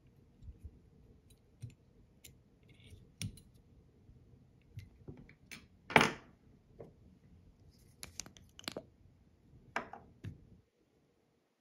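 Small scattered clicks and ticks of a whip-finish tool and tying thread being worked at the fly-tying vise as the head is tied off, with one sharper click about six seconds in.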